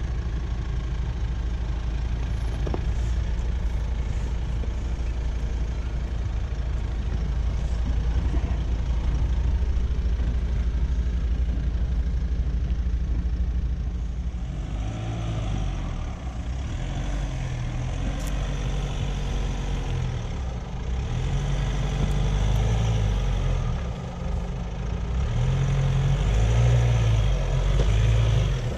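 Jeep engine running at low revs while crawling over a rough 4x4 trail. From about halfway through, the revs rise and fall repeatedly as the driver works the throttle.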